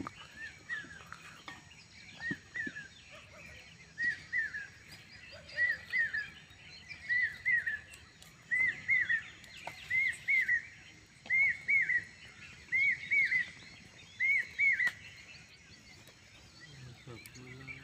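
A bird calling over and over: groups of two or three quick, arched whistled notes about every second and a half. The calls grow louder and then stop a few seconds before the end.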